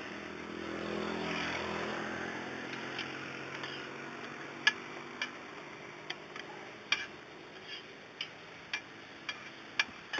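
A passing motor vehicle's engine hum swells over the first couple of seconds and fades. From about halfway, a dozen or so sharp metallic taps come at uneven intervals: a metal spatula striking the flat roti griddle.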